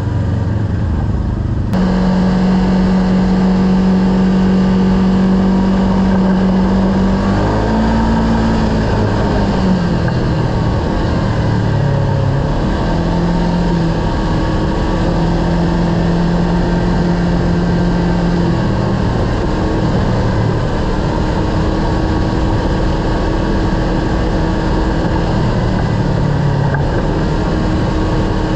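Kawasaki KRX side-by-side's engine running under way on a trail. It holds a steady note most of the time, with its pitch dipping and rising as the throttle changes about eight to thirteen seconds in, over a constant loud rush of driving noise.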